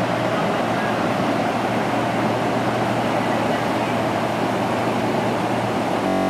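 Steady rush of floodwater pouring across a road, with a low steady hum underneath. A brief buzzing tone cuts in near the end.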